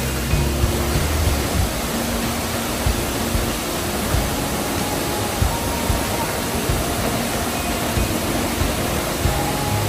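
Steady rush of a high waterfall's falling water, with background music underneath.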